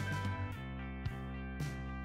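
Background music: sustained chords with notes struck at an even pace, about two a second.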